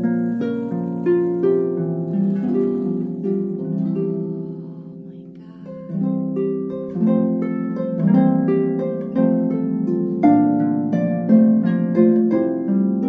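Background music of gently plucked string notes in a flowing melody, fading down about four seconds in and picking up again about six seconds in.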